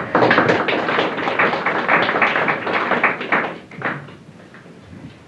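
A small audience clapping, many hands at once, dying away about four seconds in.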